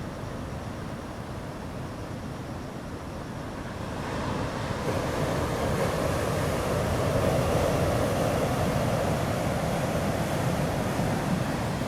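Ocean surf breaking and washing in, with wind buffeting the microphone; it swells louder about four seconds in.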